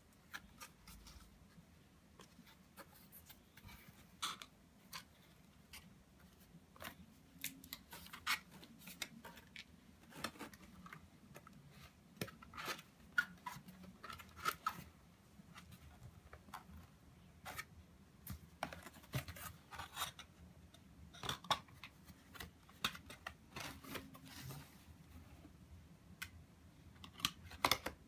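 A cardboard cat-toy box being folded and assembled by hand: irregular crisp creases, scrapes and taps of card against card as flaps are bent and tabs pushed into place.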